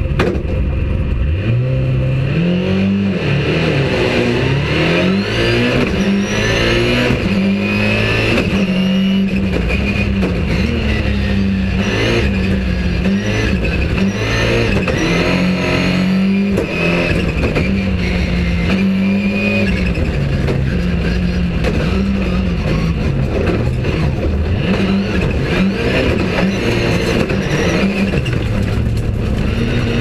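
Ford Focus rallycross Supercar engine, a turbocharged four-cylinder, heard from inside the cabin while driven hard on track: the revs climb and drop again and again through the gear changes.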